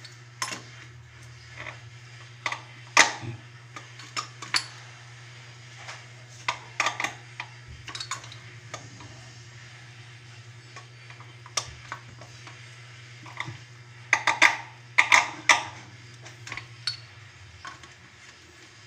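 Irregular clinks and clatters of hard objects being handled, some in quick clusters, over a steady low hum that stops near the end.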